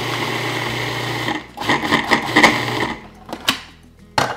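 Cuisinart food processor chopping basil and parsley for pesto: the motor runs steadily for about a second and a half, then in a few uneven surges for another second. A few sharp clicks follow near the end.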